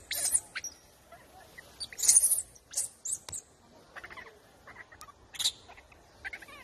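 Short, high-pitched animal squeaks and chirps in quick bursts, the loudest about two seconds in.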